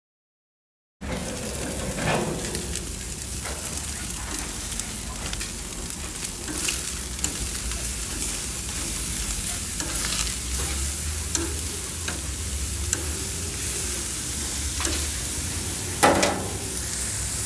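Striploin steaks sizzling on a hot barbecue grill, with metal tongs clicking against the grate as the steaks are turned over. The sizzle starts abruptly about a second in, and there is a louder clack near the end.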